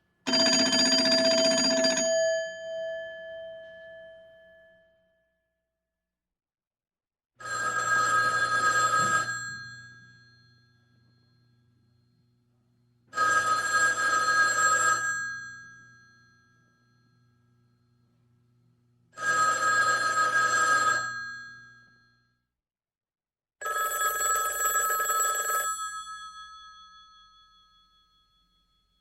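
Old telephone bell ringing in five separate rings of about two seconds each, a few seconds apart, each fading out in a ringing tail. The first ring is pitched differently from the four that follow.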